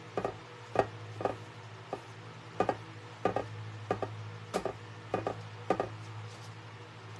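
Flat paintbrush dabbing and stroking decoupage medium onto a thin paper print laid on a tray, each stroke a short tap, roughly one every half second to second, some doubled.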